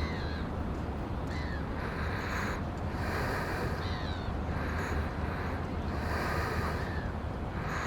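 Sea lions calling: hoarse, snorting barks repeated about once a second, over a steady low rumble of wind and surf.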